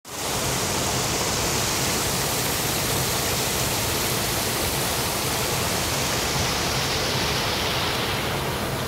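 Low, wide creek waterfall: white water rushing steadily over stepped rock ledges, a constant even hiss and rumble.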